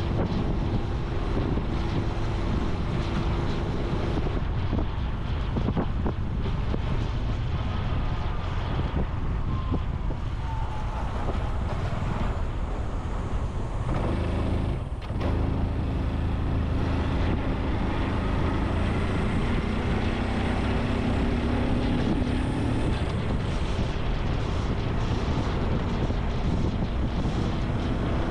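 Honda Super Cub C125's single-cylinder engine running on the move, under heavy wind noise on the microphone. The engine note dips briefly about halfway through, then climbs steadily as the bike picks up speed.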